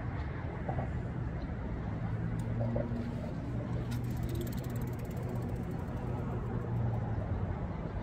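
Recumbent hand cycle rolling past, its freewheel ticking rapidly for a few seconds from about halfway through, over a steady low rumble of outdoor noise.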